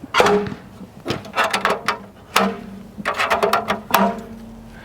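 Rapid clicks and clanks of hard parts being handled on a portable charcoal grill, coming in two quick clusters, some with a short metallic ring.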